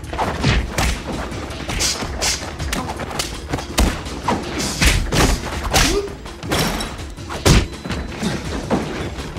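Movie fight sound effects: an irregular run of sharp punches, blows and body thuds as two men fight hand to hand, the loudest hit about three-quarters of the way through.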